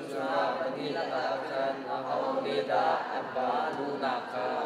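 Speech only: a preacher's voice talking, in a large church hall.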